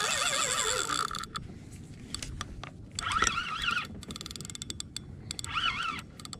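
Spinning reel being cranked in spurts, its gears giving a whine that wobbles up and down in pitch with each turn of the handle. Scattered light clicks in between.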